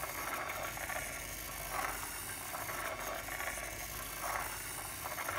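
Small battery-driven motor turning a pair of 3D-printed plastic variable-radius gears, with a steady whir and the rattle of the meshing teeth. The sound swells and fades about once every second and a half as the odd-shaped gears turn.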